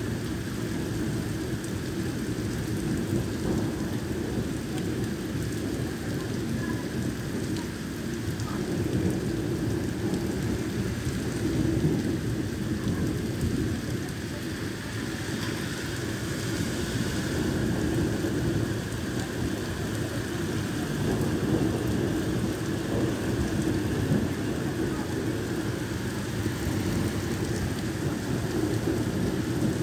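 Heavy rain pouring steadily onto a flooded street and parked cars during a thunderstorm.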